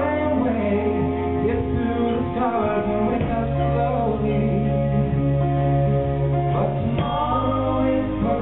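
Two men singing a duet in harmony, live through a PA, with held notes over steady instrumental accompaniment.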